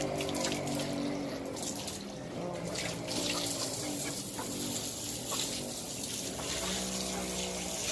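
Water running from a garden hose into a plastic cup-noodle cup, overflowing and splashing down onto the floor below.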